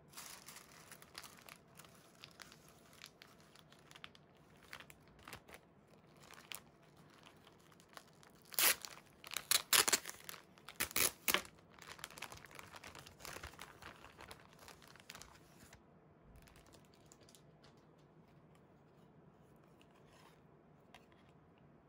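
Tissue paper and a clear plastic bag rustling and crinkling as they are unwrapped by hand, with the loudest crackling and tearing bursts about halfway through as the plastic bag is pulled open around the belt. Only faint handling noise in the last few seconds.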